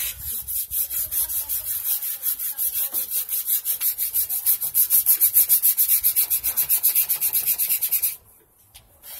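Sandpaper rubbed by hand on the painted steel handlebar and fork of a mini bike, scuffing the old paint in quick, even back-and-forth strokes, about five a second. The strokes get louder past the middle and stop abruptly about a second before the end.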